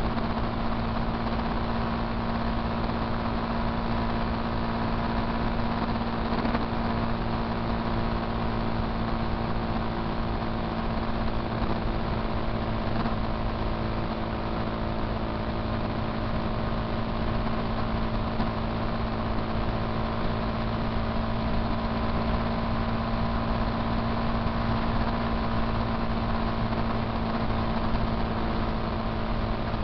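Motorcycle engine running at a steady cruising speed, an even drone with road and wind noise.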